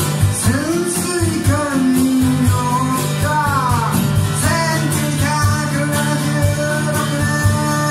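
A man singing live to his own acoustic guitar, with a drum kit keeping a steady beat behind him. The voice holds long notes that bend up and down.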